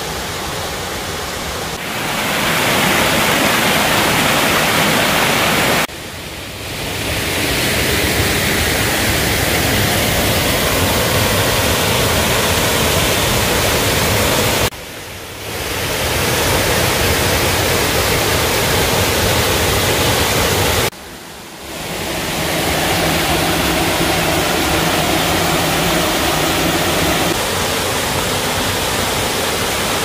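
Waterfall and rocky mountain stream rushing: a loud, steady noise of falling and running water. It drops away abruptly about six, fifteen and twenty-one seconds in, and each time the rush swells back within a second or so.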